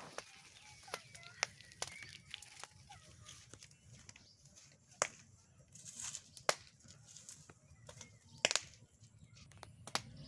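Small wood fire crackling and popping under maize cobs roasting on skewers: irregular sharp pops, with a few louder ones in the second half.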